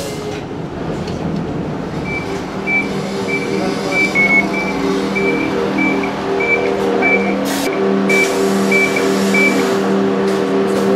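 A vehicle's engine running steadily, with a short high electronic beep repeating about twice a second for most of the time.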